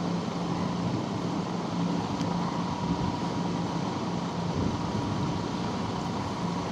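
Rain falling, a steady even hiss, with a low hum that comes and goes underneath and a faint steady high tone.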